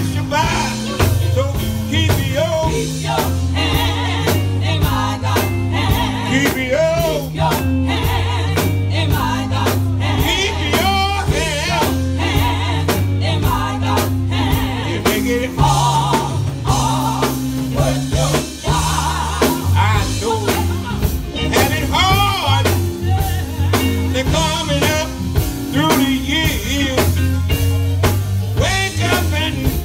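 Live gospel singing backed by a band, with lead and group voices over a bass line and a steady drumbeat.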